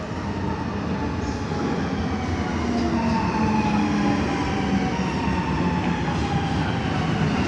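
Helsinki Metro M100-series train pulling into an underground station platform, its rumble growing louder as it comes alongside. A whine from the train falls steadily in pitch as it slows to stop.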